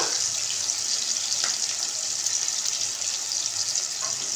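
Onion frying with cumin seeds in hot oil in a pan: a steady sizzle, with a couple of faint taps in the middle and near the end.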